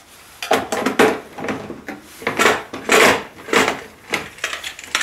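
Hard objects being handled: a run of irregular clatters, knocks and scrapes.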